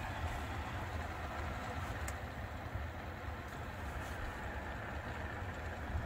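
Steady low running hum inside a 2019-2022 Honda Insight's cabin, with a few faint ticks from the dashboard air vent. The ticks are the vent rattle that the dealer has not been able to fix.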